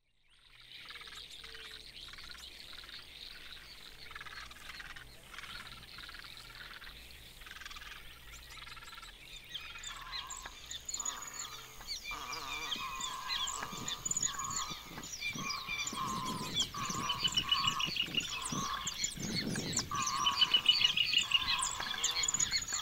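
Marsh soundscape: frogs chorusing, joined from about ten seconds in by many waterbirds calling, the flock growing steadily louder.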